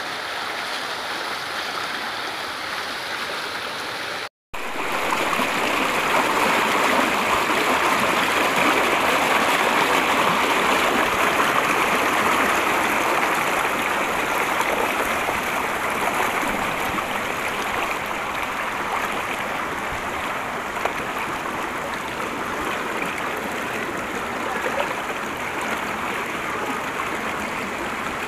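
Shallow mountain stream rushing over rocks close by, a steady water noise. It drops out for an instant about four seconds in, comes back louder, and slowly eases off.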